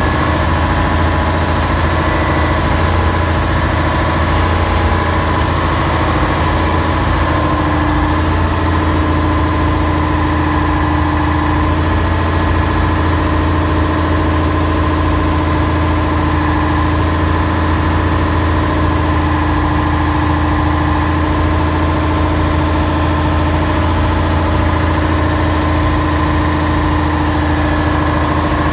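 A ferry's engine running steadily: a loud, unbroken low hum with several steady tones above it.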